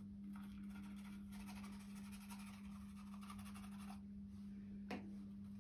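Faint scratchy rustling of a plastic teaspoon working baking powder through a paper funnel into a rubber balloon, with one light tap near the end, over a steady low hum.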